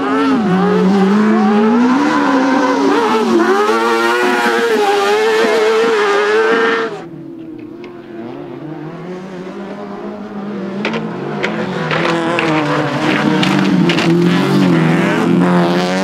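Racing engines on an autocross dirt track. An autocross buggy's engine revs hard, its pitch climbing and falling with throttle and gear changes, then cuts off sharply about seven seconds in. A second race car's engine then rises again, with scattered sharp clicks.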